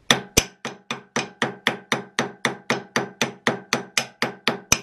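A hammer tapping quickly and evenly on an old steel axe head fitted to its wooden handle, about four blows a second. Each blow gives a sharp knock with a short metallic ring.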